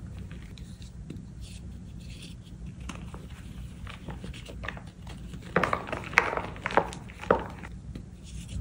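Reformed gym chalk crumbling in the hands: a soft, gritty crackle of powder and small lumps, then a few loud, sharp crunches past the middle as a chalk block is crushed.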